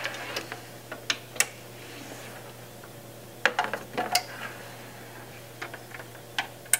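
Scattered clicks and knocks of Ethernet cable plugs going into the ports of small network AV encoder and decoder boxes while the boxes are handled on a wooden desk, over a low steady hum.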